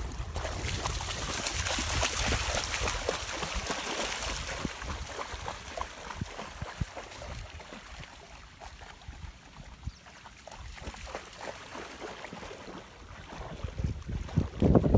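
Dogs wading and swimming in shallow lake water: irregular splashing and sloshing, loudest in the first few seconds and quieter in the middle.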